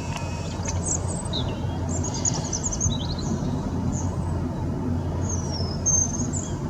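Small garden birds chirping and singing: short high chirps scattered through, and a gliding whistled phrase about five to six and a half seconds in, over a steady low background rumble.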